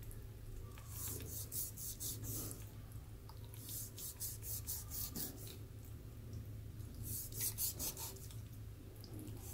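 Chef's knife scoring the skin of raw pork belly on a wooden cutting board, in quick rasping strokes that come in three runs. A low steady hum lies underneath.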